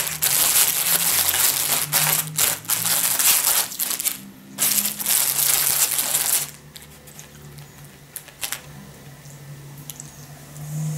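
Metallised foil snack wrappers crinkling as the packets are handled and pushed into a cardboard box, stopping about six and a half seconds in and followed by a few faint clicks.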